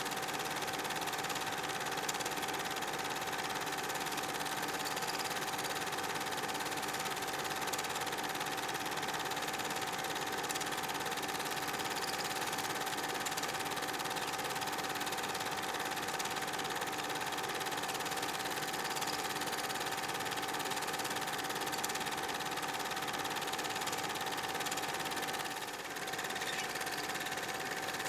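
Cine film projector running: a steady mechanical whir with a constant high hum. About 26 seconds in the level dips briefly and the hum settles slightly lower in pitch.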